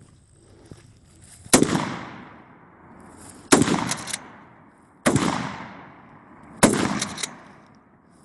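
Four shots from a DP-12 12-gauge bullpup pump shotgun firing light target loads, one every one and a half to two seconds, each trailing off in a fading echo. Quick clicks follow the second and fourth shots.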